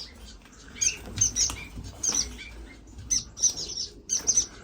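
Small cage birds chirping: many short, high-pitched calls in quick clusters, with wings fluttering.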